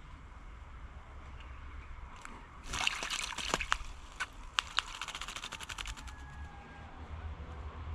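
A wattlebird bathing in a birdbath, splashing water. A burst of splashing comes nearly three seconds in, then a quick run of fluttering splashes for about three seconds.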